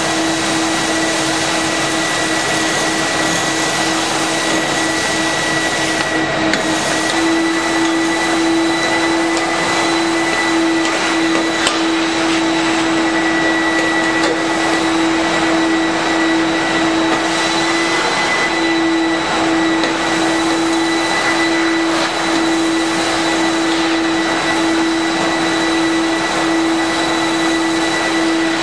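Big Brute Popular industrial vacuum cleaner running steadily, sucking up sawdust and wood shavings through its hose, with a constant motor hum and high whine and a few faint clicks.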